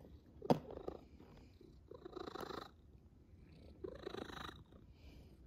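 Domestic cat purring, with a sharp click about half a second in and louder surges around two and four seconds in.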